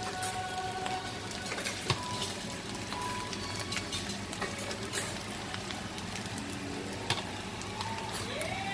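Shredded bamboo shoots and pork sizzling in an oiled wok, stirred with a wooden spatula that knocks against the pan a few times.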